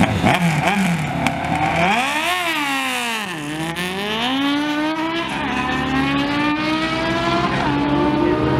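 Two sport motorcycles launching off a drag-strip start line at full throttle, their engines revving hard; the pitch climbs, drops back and climbs again with each gear change as they pull away down the track.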